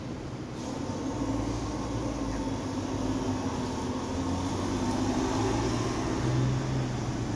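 Moscow monorail train approaching the station: a low electric hum and rumble that grows louder from about a second in.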